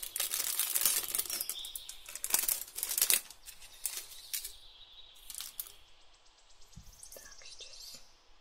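Plastic packaging crinkling and rustling in hands as a packaged chipboard piece is handled. It is densest for the first three seconds, then turns into fainter scattered rustles and ticks.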